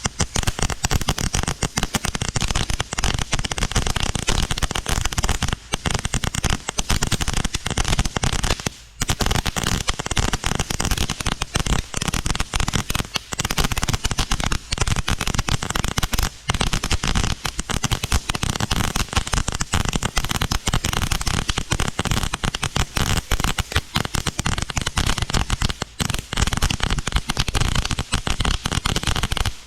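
Small consumer fireworks crackling continuously, a dense stream of rapid sharp pops with one brief lull about nine seconds in.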